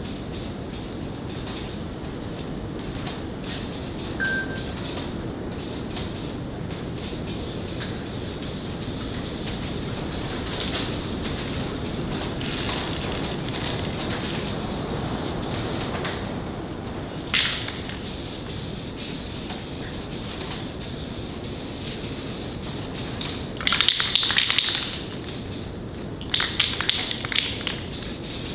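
Aerosol spray paint can hissing in short repeated bursts, the loudest near the end, over a steady low rumble of high wind on the metal pole barn.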